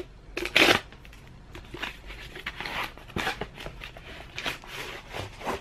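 A mail package being opened by hand: a short tearing sound about half a second in, then quieter scattered rustling and crinkling of the packaging.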